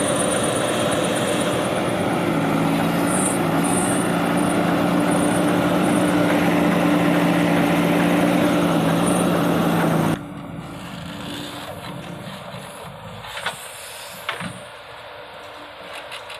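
Heavy diesel machine engine running hard at a steady pitch. About ten seconds in it drops suddenly to a much quieter engine background, with a couple of short knocks near the end.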